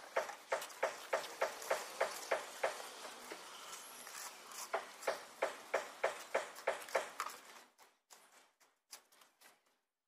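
Rapid, even knocking of a tool striking hard material, about three strikes a second, in two runs with a short lull between them, then a few fainter scattered knocks near the end.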